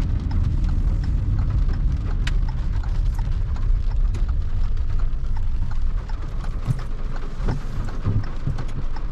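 Inside a moving car in the rain: a steady low road and engine rumble, with irregular taps of raindrops on the roof and glass.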